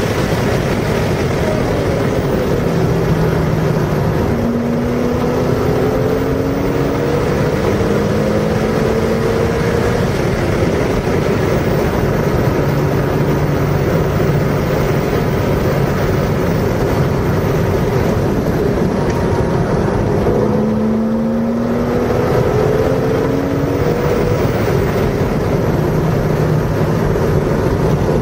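A car engine under hard acceleration on a race track, its pitch climbing and stepping back down repeatedly as it pulls through the gears. It drops away briefly about three quarters of the way through, then climbs again, all under a heavy roar of wind and road noise.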